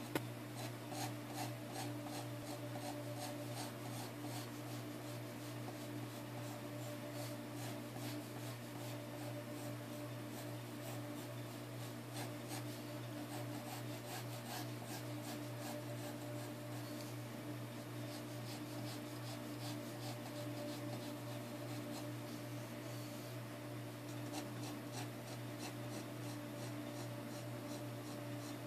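Pencil scratching on paper in quick, light, repeated sketching strokes. A steady low hum runs underneath.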